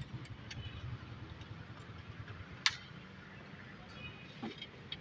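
Metal spoon clinking against a steel bowl while fries are tossed, a few light clicks and one sharp clink about two and a half seconds in, over a steady low background rumble.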